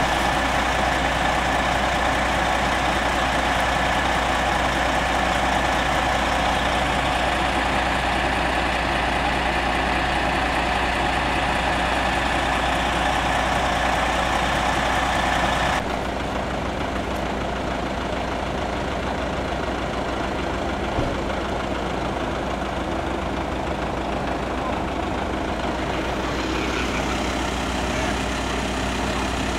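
Scania fire engine's diesel engine idling steadily. The sound drops and changes abruptly about halfway through.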